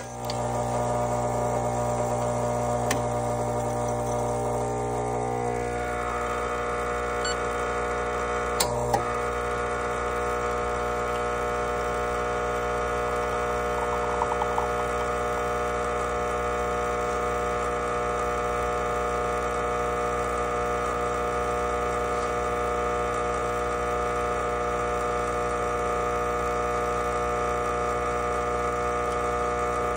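Espresso machine pump switching on and humming steadily while it pushes water through the coffee for a shot; its tone shifts slightly about six seconds in.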